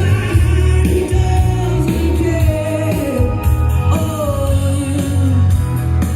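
Music: a song with a singing voice over a heavy bass line.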